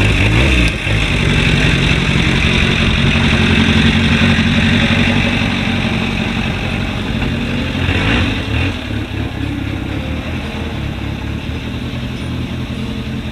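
1950 Crosley Hotshot's small four-cylinder engine running loud through a newly fitted exhaust pipe as the car pulls away, with a brief rev about eight seconds in, then slowly fading as it drives off.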